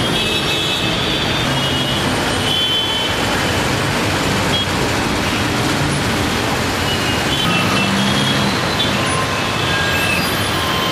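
Jammed road traffic of cars, buses and auto-rickshaws: a steady din of running engines with short vehicle horn beeps sounding again and again over it.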